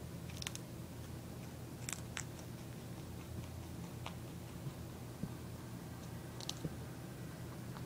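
Mini Rex rabbit nibbling a treat held in fingers: a handful of short, crisp crunches scattered over a steady low hum.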